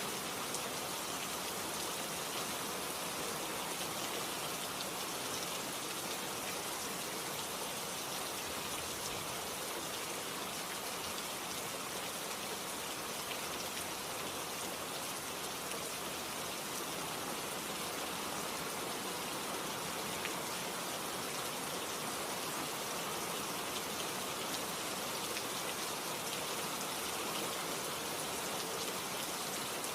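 Steady rain falling, an even hiss of many drops with no let-up or change.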